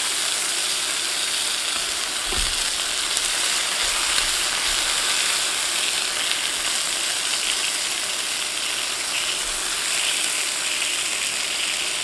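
Strip steaks sizzling steadily in clarified butter in a cast iron skillet while their fat edges are seared. A soft knock about two seconds in.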